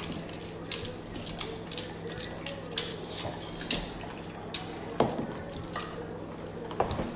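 Scattered sharp clicks and taps, irregularly spaced, over a steady low hum.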